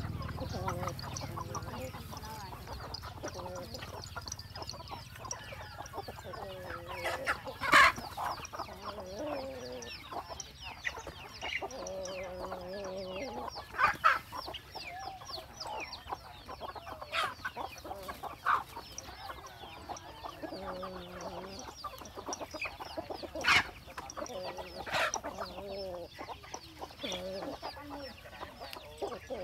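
Chickens clucking on and off in short calls, with a few short, sharp louder sounds standing out about a third, half and four-fifths of the way through.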